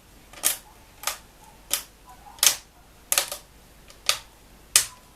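Plastic screen bezel of a laptop lid being pressed down so its clips snap into place: a sharp click about every two-thirds of a second, eight in all, one pair close together near the middle.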